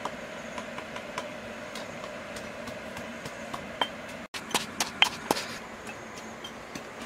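Light knife taps about every half second over a steady background hiss, then, about four and a half seconds in, a quick run of sharp knocks from a pestle pounding in a mortar, the loudest about five seconds in.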